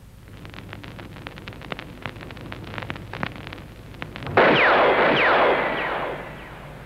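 Irregular crackling clicks, then a little over four seconds in a sudden loud burst of noise like an explosion, with a few quickly falling whistling tones in it, dying away over about two seconds.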